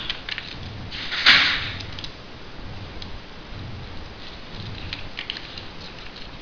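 A sheet of foil-backed origami paper being handled and folded on a table: soft rustling and small crinkles, with one louder crackle a little over a second in as the sheet is opened out and flattened.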